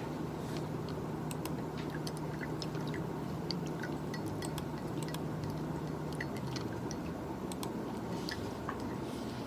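Ice cubes clinking and shifting in a glass: many small, irregular clicks and short pings over a steady low hum that fades about two-thirds of the way through.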